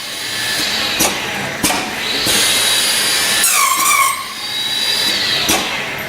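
AOK SIII channel letter bending machine working stainless steel strip: its motors whine, sweeping up and down in pitch, with a steady high whine and hiss as the strip feeds. Sharp metallic clacks from the bending head come about a second in, again shortly after, and near the end.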